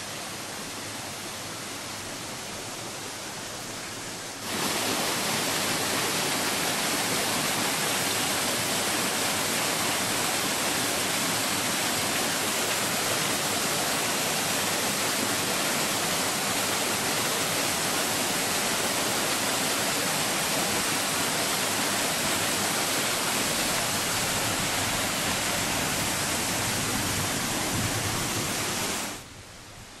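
Waterfall cascading over rocks: a steady rush of falling water that jumps louder about four seconds in and drops back just before the end.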